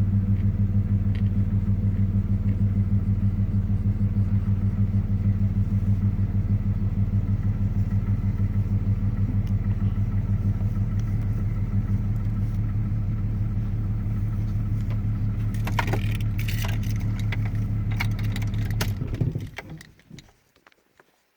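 Vehicle engine running steadily with a fast, even pulse, with some clicking and rattling near the end. The engine is then switched off, and the sound dies away to near silence.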